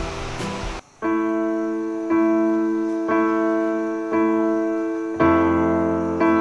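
Background music: a piece ends abruptly just under a second in, then a keyboard plays soft, sustained chords, one struck about every second, with a fuller chord about five seconds in.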